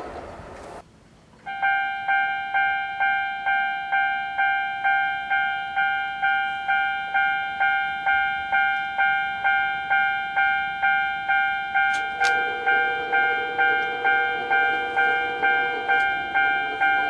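Japanese railway level-crossing warning bell starts about a second and a half in and rings a steady electronic ding about twice a second. A second, lower-pitched bell tone joins about 12 seconds in. Before the bell starts, the last of a passing train's noise fades out.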